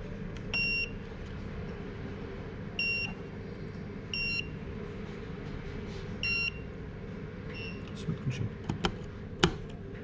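Electronic buzzer on a homemade irrigation controller beeping four times at uneven intervals, each beep short and high-pitched. A few sharp clicks follow near the end, over a steady low hum.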